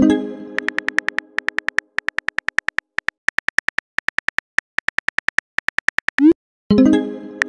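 Phone keyboard clicks tapping out a text message in a quick, even stream. It opens on a ringing message chime. About six seconds in, a short rising swoosh of a sent text is followed by another chime.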